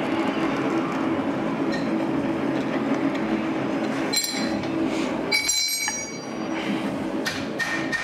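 Steady roar of a blacksmith's forge, with a few short, bright metallic clinks of steel stock and tools around the middle and near the end.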